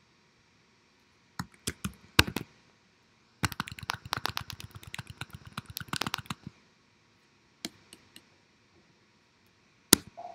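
Typing on a computer keyboard: a few separate sharp key taps, then a quick run of keystrokes lasting about three seconds, and a few more taps later, one loud one near the end.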